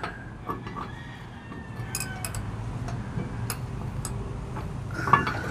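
A socket wrench being fitted onto a riding-mower blade bolt under the deck: a few scattered, irregular light metal clicks and clinks over a low steady hum.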